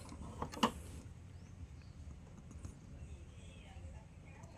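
Faint handling clicks as a circuit board is pressed onto a power-tool battery pack and worked with a small metal tool, with one sharper click about half a second in. A low hum runs underneath.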